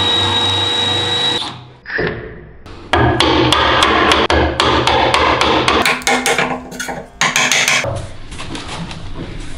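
Hammer blows driving a wood chisel into the edge of a wooden door, a rapid run of sharp strikes from about three seconds in until nearly eight seconds.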